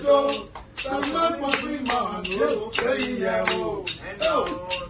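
Men singing a song with a steady rhythmic percussive beat of sharp strokes.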